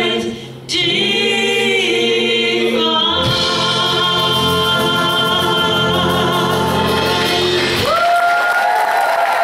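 Country band ending a song: several voices sing in harmony over electric guitar and hold a long final chord. About eight seconds in, the low instruments cut out and a single sung note is held.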